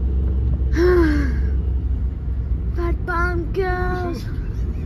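Ford Transit Connect van driving at motorway speed, heard from inside the cabin as a steady low drone of engine and road noise. A child's high voice makes one short falling sound about a second in, then a few short sung or spoken syllables near the end.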